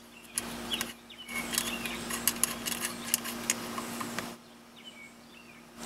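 Small plastic clicks and handling noises as a coax cable connector is screwed into a Wilson cell phone signal booster, over a steady low hum that stops a little past four seconds in.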